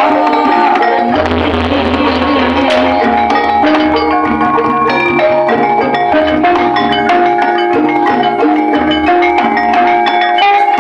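Javanese gamelan-style music played very loud through a sound system: metallophones strike a repeating melody of ringing notes over deep drum beats. The sound system is loud enough to overload the recording.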